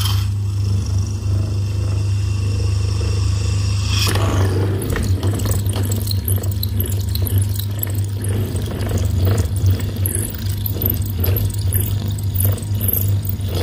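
Electric motor spinning a drill bit in its chuck with a steady low hum. About four seconds in, the bit starts cutting into the metal housing of a diesel injection pump, adding a rough, crackling scraping hiss as it drills the hole.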